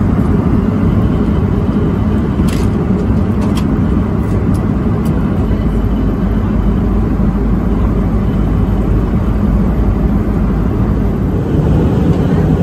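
Steady cabin noise of an Airbus A320-214 in cruise: the roar of air and its CFM56 engines, heaviest in the low range. A few light clicks come about two and a half to five seconds in.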